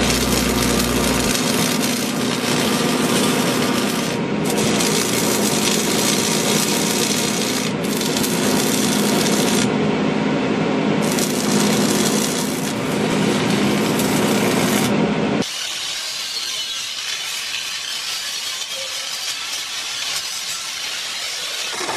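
Arc welding on steel railing: a dense, steady crackle with a low electrical hum beneath, broken by a few short pauses. About fifteen seconds in it gives way to a quieter, higher hiss from a hand-held power tool worked along the railing.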